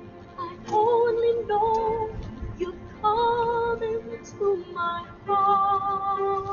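Music: a female voice singing long held notes with slight vibrato, phrase by phrase with short breaths between.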